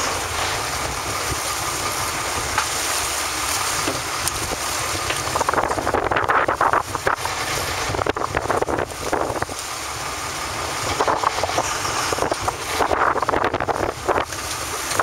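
Wind buffeting the microphone on an open fishing boat over the steady noise of the boat's engine and the sea. From about five seconds in, the wind hits come in irregular gusts.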